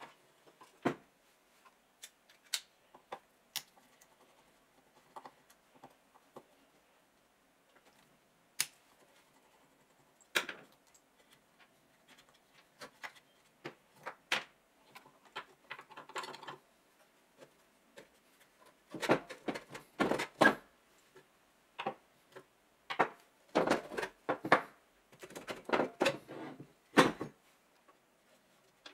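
Clicks and clanks of hand tools and steel parts during hands-on disassembly of an old metal cut-off saw: scattered single knocks at first, then runs of louder clattering and rasping in the last third as a spanner works the rusty fasteners on the cast base.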